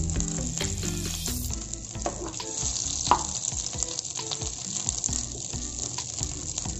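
Butter melting and foaming in a hot kadhai over a low flame, sizzling steadily with fine crackles and pops.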